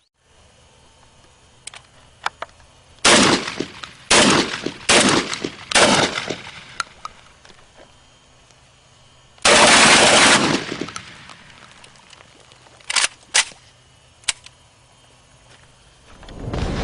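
Saiga-12 semi-automatic shotgun with a TAC47 adjustable gas plug firing a mixed load of slugs and buckshot. Four shots come about a second apart, then after a pause a dense, loud stretch of fire lasting about a second, followed by a few small sharp clicks. The plug is tuned so the gun cycles each mixed shell without failures to eject.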